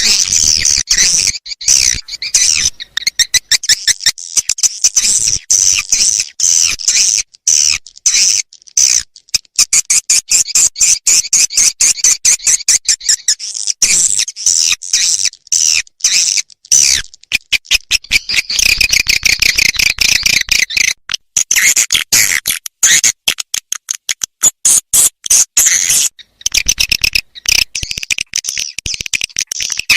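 Recorded swiftlet calls used as a swiftlet-house lure sound: dense, rapid trains of sharp, high chirps and clicks that repeat throughout.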